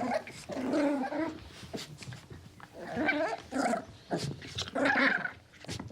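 An animal calling: several short voiced calls in three bursts, with pauses between them.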